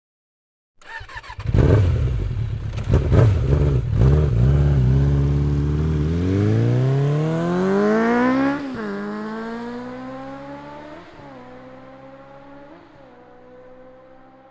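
Motorcycle engine bursting into life about a second in and revving a few times, then pulling away and accelerating, its pitch climbing and dropping at about three gear changes as it fades into the distance.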